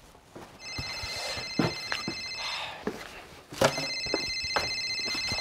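A telephone ringing twice with an electronic trill, each ring about two seconds long and about a second apart, with a few light knocks in between.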